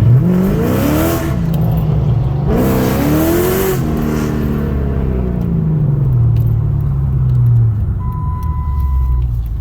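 Car engine revved twice in quick succession, with a hiss that swells at the top of each rev, then settling slowly back to idle. The engine is being run to find a suspected exhaust leak. A short steady beep sounds near the end.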